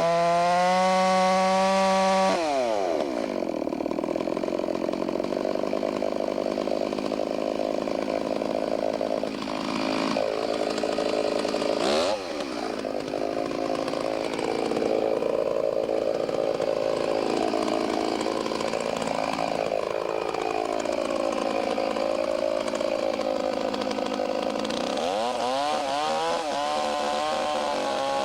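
Chainsaw running at full throttle for about two seconds, then dropping in pitch as the bar bites into the trunk. The engine note sags and recovers repeatedly while it cuts through the wood, with a sharp click about halfway, and it revs back up near the end.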